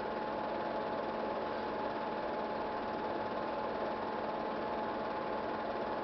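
Steady mechanical whirr of a running film projector, with a constant high whine over it.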